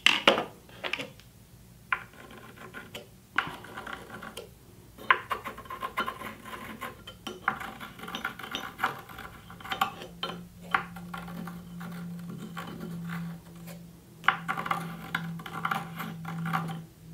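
Pencil scratching against plywood as the mounting holes of a metal bench vise are marked through the casting's holes, with sharp clicks and knocks as the vise and level are handled. A low steady hum runs through the second half.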